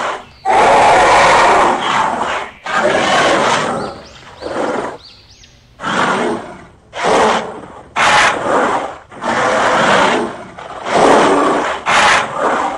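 Dinosaur roar sound effects voicing toy dinosaurs: a run of loud roars, each about a second long, with short gaps between them.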